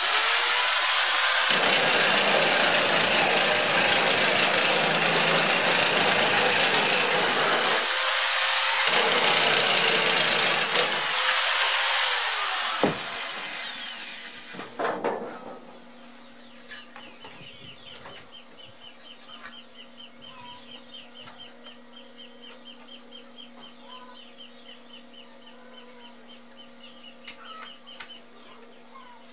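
Angle grinder cutting sheet steel. It spins up at the start, runs loud for about twelve seconds, then spins down. A faint rapid ticking follows.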